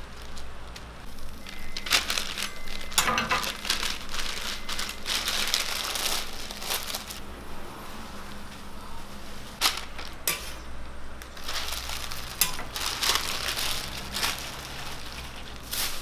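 Paper burger bags and wrappers rustling and crinkling in irregular handled bursts, over a steady low hum.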